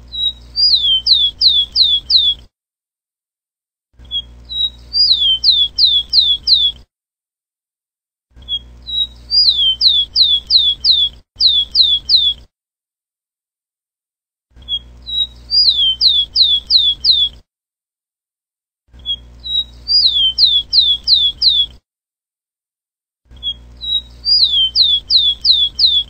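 Rufous-collared sparrow (tico-tico) singing its song: a short opening note, then a quick run of about five falling whistles. The song comes six times, about every four seconds, with a faint low hum under each phrase and silence between.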